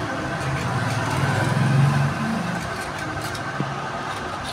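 An engine running in the background, swelling briefly and rising a little in pitch about one and a half to two seconds in, over a steady hum.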